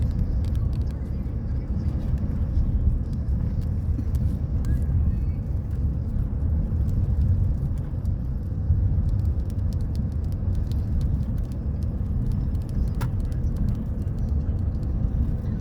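Steady low road rumble of a moving car heard from inside the cabin, with faint scattered ticks.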